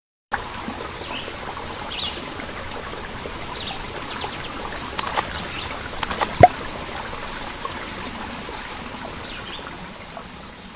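Outdoor ambience of steadily running water with faint short bird chirps. A single sharp splash about six and a half seconds in is the loudest moment, and the ambience fades out near the end.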